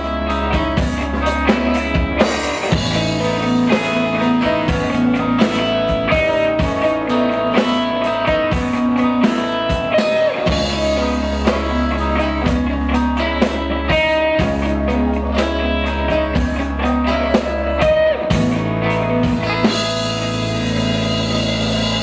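Live rock band playing: electric and acoustic guitars over a drum kit keeping a steady beat. Near the end the cymbals wash under held chords.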